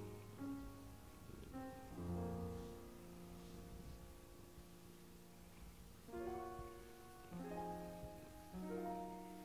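Soft background piano music: slow chords, each struck and then held for a second or more, with a new chord about two seconds in and three more in the last few seconds.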